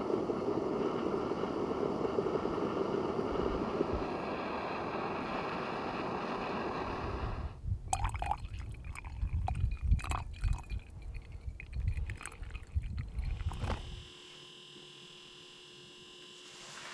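Aluminium stovetop moka pot steaming with a steady hiss, then coffee poured from it into a cup about eight seconds in, an uneven trickle and splatter. The last few seconds drop to a faint steady background.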